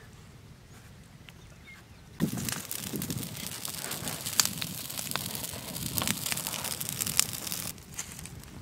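Open fire of dry straw and twigs crackling and popping, with many sharp snaps. It starts abruptly about two seconds in and drops away suddenly near the end.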